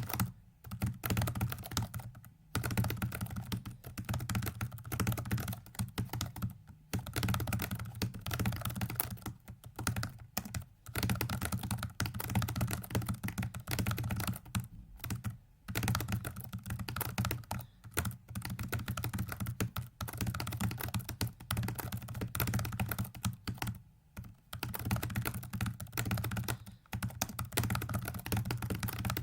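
Computer keyboard typed on rapidly, in dense runs of key clicks broken by short pauses every few seconds: keystrokes turning a virtual 4x4x4x4 hypercube puzzle during a speedsolve.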